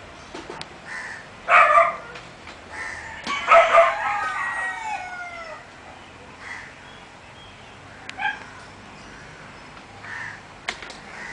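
A rooster crowing once, starting about three seconds in, with shorter bird calls before and after it.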